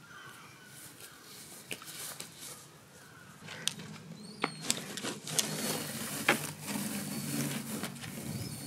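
A leaf rake scraping and rustling through lawn grass, with a run of sharp scratchy strokes that starts about halfway through after a quieter first half.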